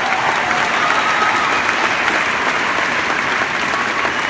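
Crowd applauding steadily after an applause line.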